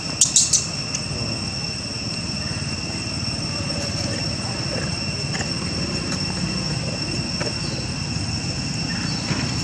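Steady, high-pitched drone of insects in the trees, holding two even pitches throughout. Near the start come three short, sharp high squeaks in quick succession.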